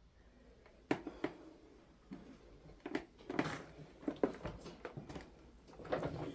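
Irregular light knocks, clicks and rustles in a small room, the sounds of someone moving about among debris and clutter, with a short noisier rustling patch about halfway through.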